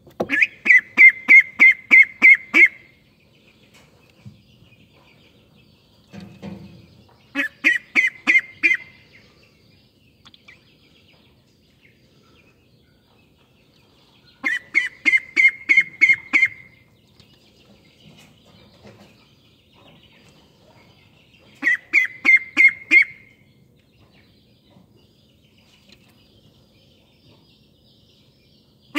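A duckling about four weeks old calling in bouts of rapid short calls, about three a second and seven or eight to a bout, with four bouts spaced several seconds apart.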